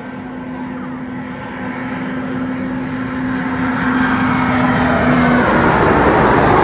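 Airliner on landing approach passing low overhead, its engine noise growing steadily louder to a peak near the end, with a steady low hum that drops away about five seconds in.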